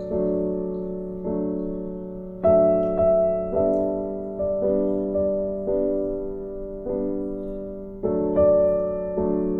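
Background piano music: a slow, gentle melody with a new note or chord struck about once a second, each fading away over a sustained low note.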